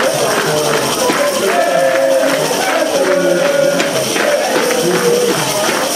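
Crowd of spectators singing and chanting, over a fast rhythmic beat of hand claps and thundersticks banged together, about three strikes a second.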